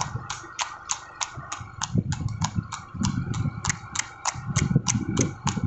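Horse's shod hooves clip-clopping on asphalt at a trot, in an even rhythm of about three to four strikes a second, with a low rumble underneath that grows louder in the second half.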